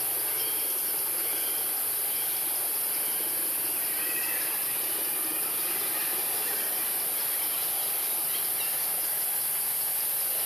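Steady, high-pitched drone of forest insects, an unbroken hiss, with a few faint chirps about four seconds in.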